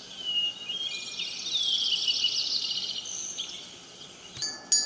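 Recorded birdsong from a L'émouchet AS 2se white noise machine's "Birds" setting: many chirps and trills that fade out after about three and a half seconds. Near the end the machine switches to its wind chime sound and ringing chime tones begin.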